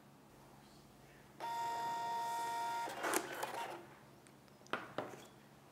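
Nemonic Label thermal printer printing a sticky note: a steady motor whine for about a second and a half, then a short rasp. Two light clicks follow near the end.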